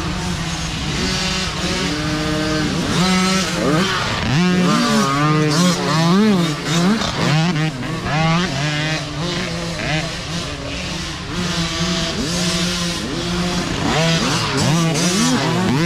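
Several small dirt bike engines revving up and down over and over, their pitches rising and falling and overlapping, over a steady lower engine drone.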